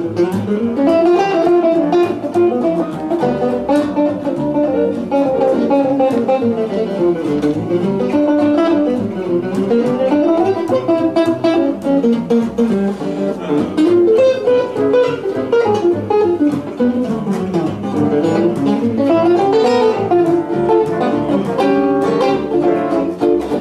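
Background guitar music, a quick run of plucked notes.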